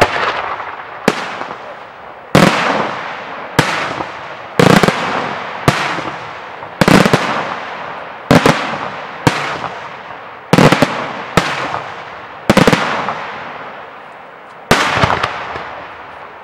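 Daytime fireworks: aerial shells bursting overhead, about a dozen loud bangs roughly a second apart, some in quick doubles, each echoing away. The last burst comes a little before the end and fades out.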